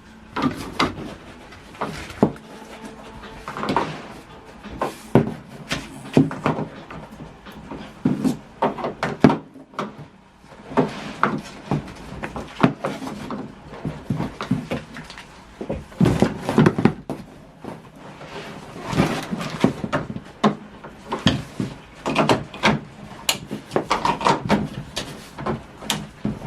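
Irregular knocks, clicks and rustles of parts being handled and fitted together: plastic TV parts and packaging being moved and pressed into place.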